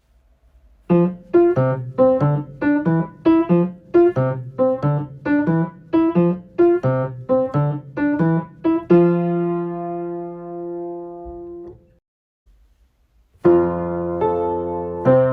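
Piano playing a simple, evenly paced run of short notes, about two a second, ending on a held chord that rings out and dies away; after a brief pause a new phrase begins near the end.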